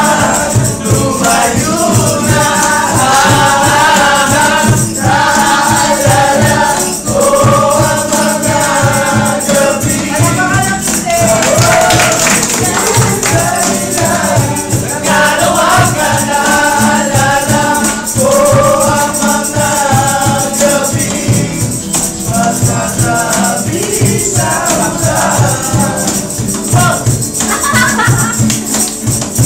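A group of men singing together in chorus to two strummed acoustic guitars and a steady cajon beat.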